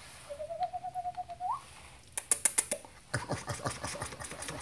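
Airedale Terrier puppies scrambling on a hard porch floor: a run of sharp, loud clicks about halfway through, then dense clicking and scuffling of claws. Earlier, about a third of a second in, a short whistle-like trill rises at its end.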